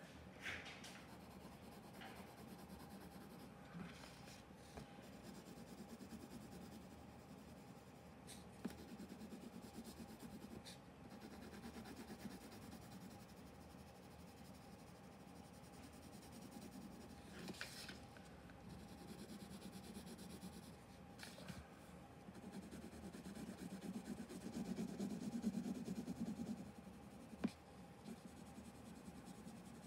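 Coloured pencil shading lightly on paper in small circular strokes: a faint, steady scratchy rubbing that grows louder for a couple of seconds near the end. A few light taps from the paper being handled break in, over a faint steady hum.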